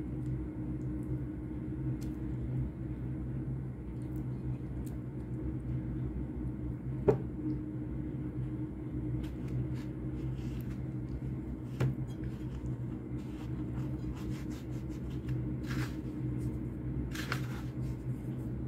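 Hands coating boiled chicken drumsticks, dipping them in egg wash and rolling them in dry breadcrumbs. Scattered light clicks, a sharp knock about seven seconds in and two short rustles near the end, over a steady low hum.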